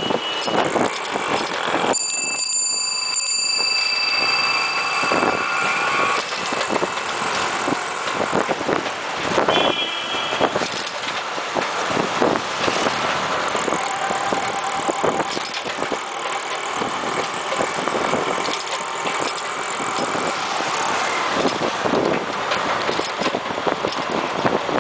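Rolling ride noise picked up from a bicycle in city traffic: a steady rush of wind and traffic, with frequent rattles and knocks. Brief high-pitched tones sound about two seconds in and again about ten seconds in.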